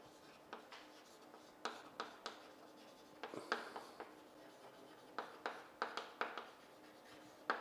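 Someone writing by hand: faint pen scratches on a surface, with clusters of short taps about two, three and five seconds in.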